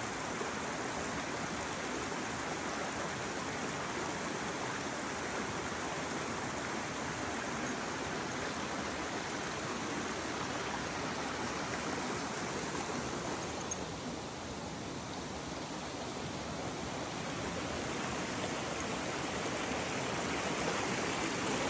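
Steady rush of a shallow woodland creek's running water, dipping slightly about two-thirds of the way through.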